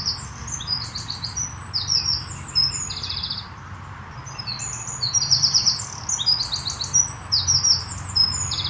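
European goldfinch song: rapid, tinkling twittering mixed with buzzy trills, in two bursts with a short pause just past the middle, over a steady low background rumble.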